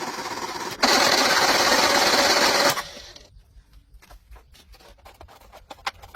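A power tool running steadily, jumping much louder about a second in for about two seconds, then stopping. Light scattered clicks and taps follow.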